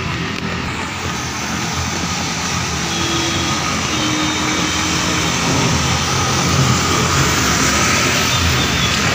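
Rain falling on a flooded street: a steady wash of noise with a low rumble underneath, growing slightly louder.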